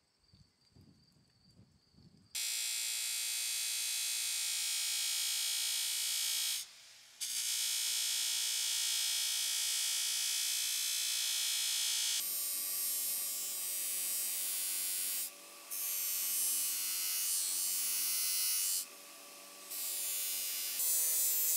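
Bench grinder spinning a cotton buffing wheel, with steel gun parts pressed against it and polished ahead of hot bluing: a steady motor whine with the hiss of metal on the wheel. It starts about two seconds in, turns hissier about halfway through, and drops away briefly a few times.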